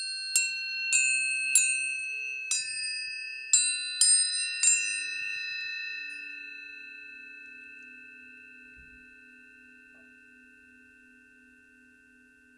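Planetary tuning forks struck about eight times in quick succession, each a bright metallic tap followed by clear ringing tones at a few pitches. After the last strike, about five seconds in, the tones ring on and slowly fade.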